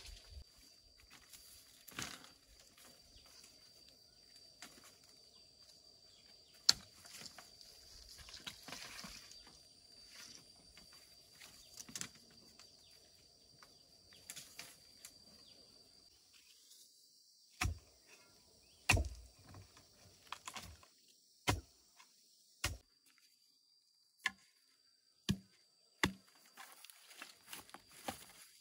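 Bamboo poles knocking and clattering against each other as they are handled and laid on the ground: scattered sharp knocks, coming about once a second in the second half, over a faint steady high tone.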